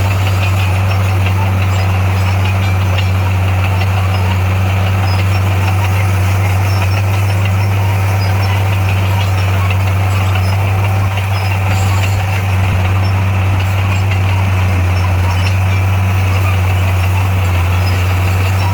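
Heavy diesel engine of construction machinery running steadily with a deep, even hum.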